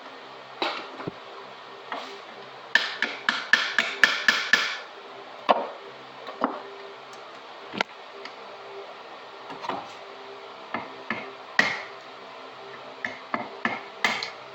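Hammer striking metal. A few seconds in comes a quick run of about eight blows, about four a second, then scattered single knocks and taps.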